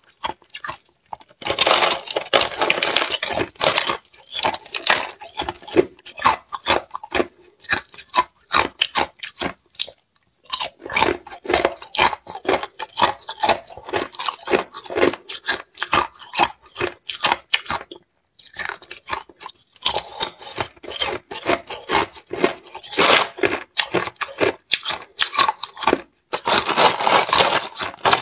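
Close-up crunching and chewing of thin sheets of frozen matcha ice: bursts of rapid sharp cracks as the ice is bitten and crushed between the teeth, broken by a few short pauses.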